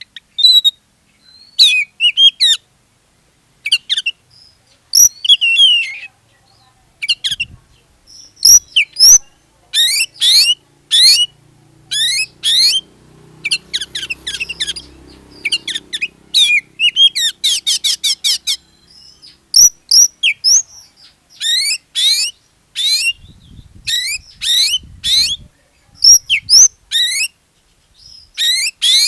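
Oriental magpie-robin singing loudly in full, non-stop 'gacor' song: quick rising and falling whistled phrases separated by short pauses, with a rapid run of repeated notes about halfway through. This is the kind of song played to prompt other magpie-robins to sing.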